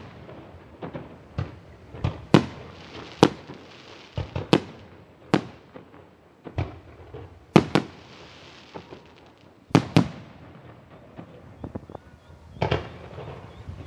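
Backyard fireworks going off: about a dozen sharp bangs at irregular intervals, several in quick pairs, some followed by a brief crackling hiss.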